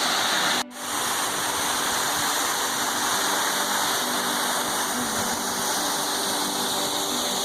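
Steady rushing of a waterfall. It breaks off for an instant less than a second in, then carries on unchanged.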